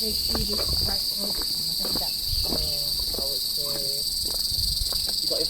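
Steady, shrill insect drone on one high pitch, with fainter overtones above it.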